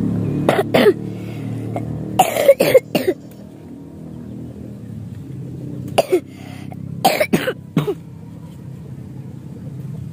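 A person coughing in four short fits of one to three coughs each.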